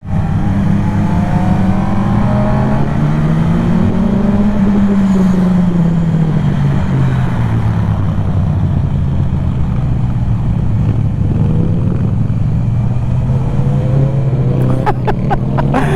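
Motorcycle engine running hard during a fast ride, its pitch climbing about four seconds in, falling away, then climbing again near the end as the throttle is worked.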